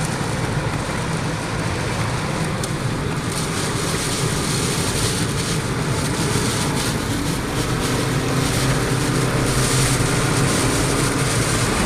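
Steady drone of a moving vehicle heard from inside the cab, engine and road noise, slowly growing a little louder.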